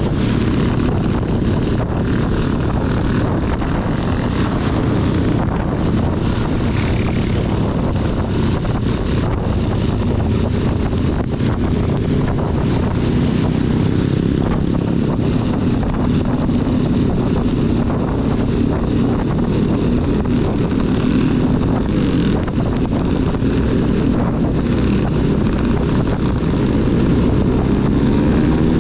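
Honda CB250 motorcycle engine running steadily under way in heavy rain, with wind buffeting the microphone and the hiss of rain and spray. The engine note rises slightly near the end.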